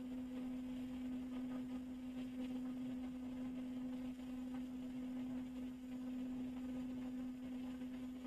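A steady low hum at one pitch, with a fainter tone an octave above it.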